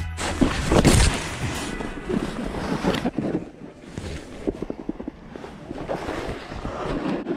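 Snowboard sliding and scraping across packed snow, with wind buffeting the microphone. Jacket fabric rubs and knocks against the microphone in irregular bursts.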